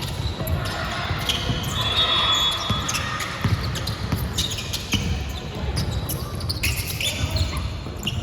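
Basketball being dribbled and bouncing on an indoor court during a game, with short high squeaks about 2 seconds in and again near the end, in a reverberant hall.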